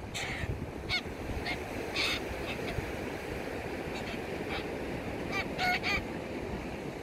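A flock of white cockatoos giving scattered short calls, about ten in all, the loudest about two seconds in and a cluster near the end, over the steady wash of surf.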